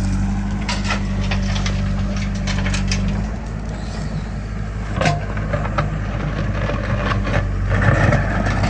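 Heavy diesel engine of a backhoe loader or tractor running steadily, its hum turning rougher about three seconds in. Scattered knocks and clatters sound over it, typical of mud and bucket work.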